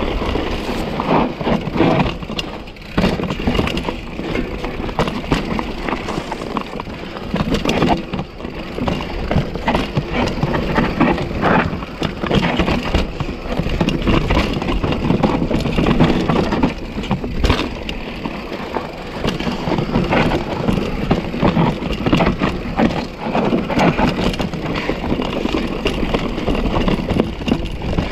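Mountain bike rolling down a rough technical trail: a continuous clatter of tyres over dirt, roots and rock, with irregular knocks and rattles from the bike as it hits bumps and drops.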